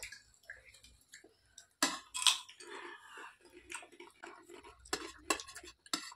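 Close-up chewing and mouth sounds of people eating a rice meal, with a few sharp clicks scattered through.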